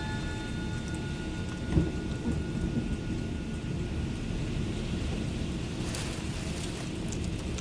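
Heavy rain with low, steady rumbling thunder, and one sudden sharp knock about two seconds in.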